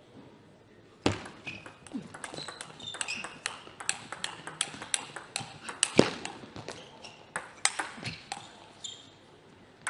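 Table tennis rally: the celluloid-type ball clicks sharply off the rackets and the table in quick succession. The clicks start about a second in and stop about a second before the end, with one more click near the very end.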